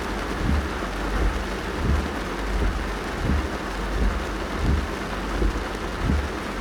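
Rain pattering on a car's roof and windscreen, heard from inside the cabin. Over it the windscreen wipers sweep with a dull low thump at each stroke, about every 0.7 seconds.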